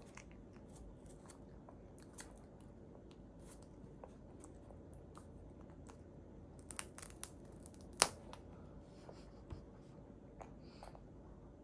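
A baby eating: faint scattered clicks and small crunches, with a short cluster about seven seconds in and one sharper click about eight seconds in.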